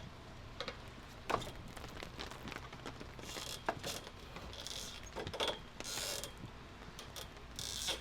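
Scattered metallic clicks, creaks and knocks of hanging ninja-obstacle rings and their hardware as someone swings across the obstacle, with a few short hissy rustles in between.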